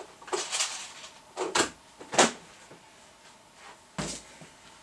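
Rummaging through workshop parts storage: several short clattering knocks and rattles, the loudest about two seconds in.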